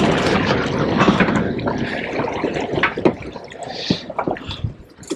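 Water splashing and sloshing, loud and continuous at first, then breaking into scattered splashes and drips.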